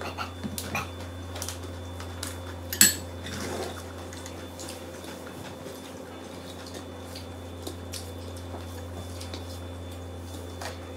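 Light clinks and taps on a ceramic bowl as rice is mixed by hand, with one sharper clink about three seconds in. After that the clinks thin out, leaving a steady low hum.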